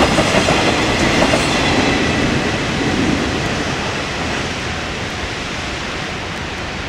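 Last container wagons of a freight train running past at speed, wheels on the rails, then the train's noise slowly fading as it moves away.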